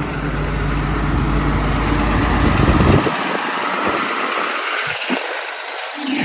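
Hyundai R230L excavator's diesel engine running with a deep, steady note. About halfway through, the deep note cuts off suddenly, leaving a broad mechanical hiss.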